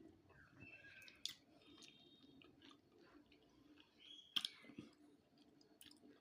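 Faint, soft chewing and mouth sounds of someone eating brigadeiro, a soft chocolate fudge sweet. A few small clicks come through, the clearest about a second in and just after four seconds in.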